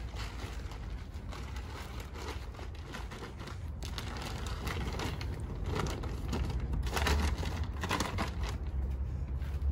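Rustling, crinkling and scraping as bags and an IKEA Alex drawer unit are pushed into the cargo area of a car, with a few louder knocks near the end, over a steady low rumble.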